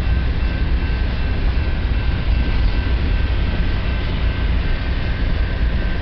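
Freight cars of a mixed freight train rolling past: a steady rumble of steel wheels on the rails, with a faint steady high whine over it.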